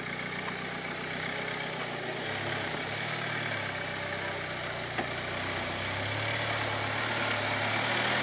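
Nissan Patrol 4WD engine running at low revs as the vehicle crawls slowly over a rutted dirt track, growing louder as it draws near.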